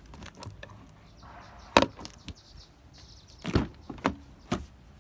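A run of sharp knocks and clicks: a few light clicks at first, a loud knock about two seconds in, then three more knocks close together near the end.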